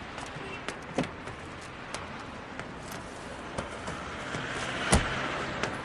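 Footsteps on a hard floor at a brisk walk, about three steps a second. A hiss swells from about halfway, and a single loud thump comes near the end.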